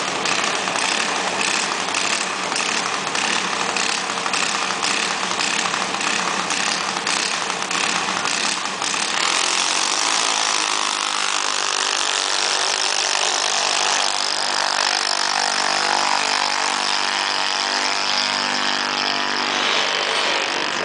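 Junior dragsters' small single-cylinder engines running at the starting line, pulsing about twice a second, then a fuller, louder engine sound from about nine seconds in as the cars launch and run down the strip.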